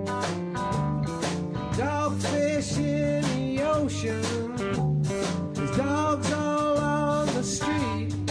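Blues-style song with guitar and a steady beat, with pitched lines that bend up and down through it.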